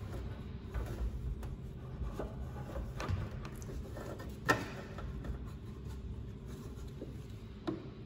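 Scattered clicks and knocks of a clip-removal tool and plastic trim being handled under a car's trunk lid, with one sharp click about four and a half seconds in and another near the end.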